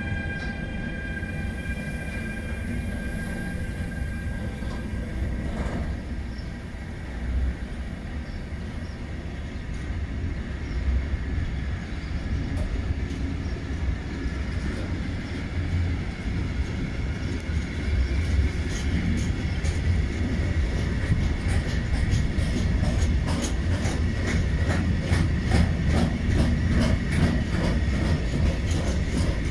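Freight train departing behind BR187 electric locomotives. A steady electric whine from the locomotives' traction drive fades after about five seconds. Then the wagons rumble past, with a growing run of wheel clicks over rail joints in the second half as the train gathers speed.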